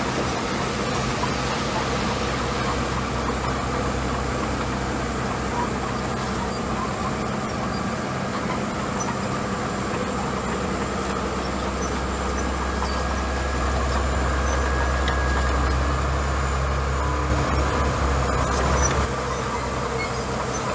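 Small crawler bulldozer's diesel engine running steadily while pushing gravel, louder for a few seconds about two-thirds of the way through, then dropping back.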